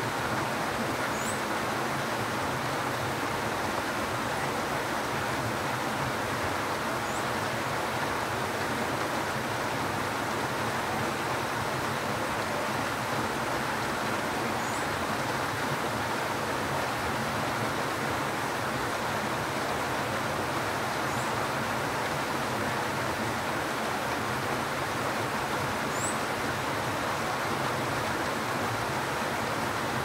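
Steady rain falling, an even hiss with no breaks. Several faint, short high bird chirps come every few seconds.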